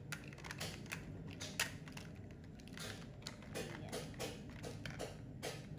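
Hard plastic toys clicking and knocking as they are handled, a run of irregular taps with one sharper knock about a second and a half in.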